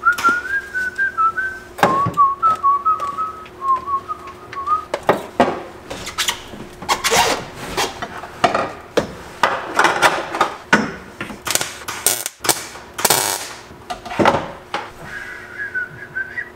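Someone whistling a wavering tune for the first few seconds and again near the end. In between come a run of knocks, clanks and scrapes from a roll-cage tube being handled and fitted inside a car's bare metal cabin.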